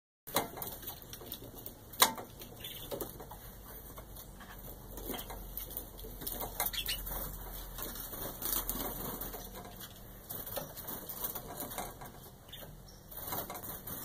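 Domestic canaries in an aviary making scattered short chirps, mixed with many light clicks and ticks. A sharp click about two seconds in is the loudest.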